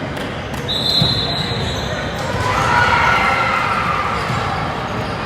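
Basketball dribbled on a court: repeated low bounces under the chatter and shouts of players and spectators, with a thin high squeak starting about a second in.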